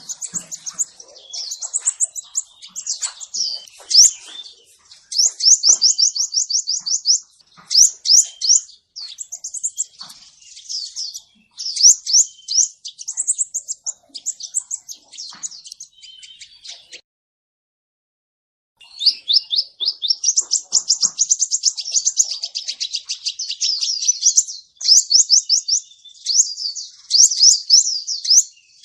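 Male crimson sunbird song: rapid series of thin, high chirps and fast trills, in quick bursts, with a break of about two seconds midway.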